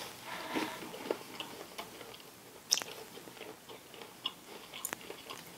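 Close-up chewing of a white chip macadamia nut cookie: faint crunchy mouth sounds, with two sharper clicks, one nearly three seconds in and one about five seconds in.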